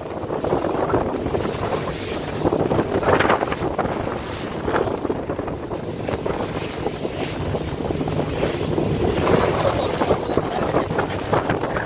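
Wind buffeting the microphone and water rushing past a speedboat under way, with the boat's engine a faint steady drone underneath.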